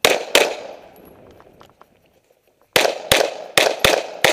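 Semi-automatic pistol fired rapidly: a quick pair of shots, a pause of about two seconds, then a fast string of five shots at roughly three a second, each shot ringing briefly after.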